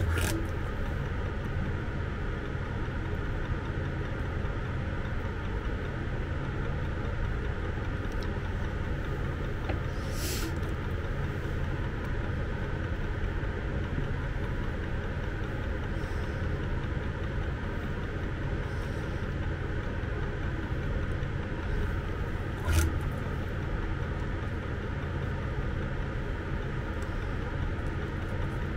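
A steady low mechanical hum with a few sharp clicks as small metal wire terminals are handled on a rubber bench mat.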